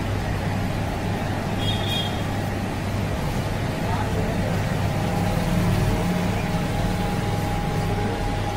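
Steady low rumble of street traffic and engines, with a faint steady hum and a brief high beep about two seconds in.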